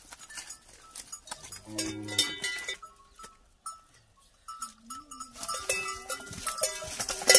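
A water buffalo calf calling a few times in short cries that rise and fall in pitch, with a bell clinking near the end.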